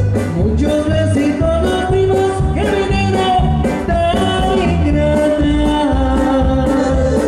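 Live Latin dance band music with a steady beat, bass and a held melodic lead, played loud through a sound system for dancing.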